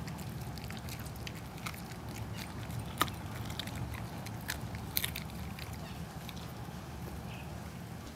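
Siberian husky chewing raw chicken: scattered mouth clicks and crunches, with two louder cracks about three and five seconds in.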